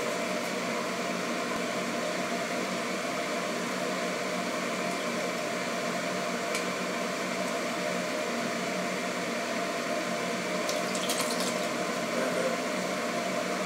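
Steady mechanical hum in the kitchen, with a couple of faint clinks as a spatula stirs the pot of sauce, once about six seconds in and again near eleven seconds.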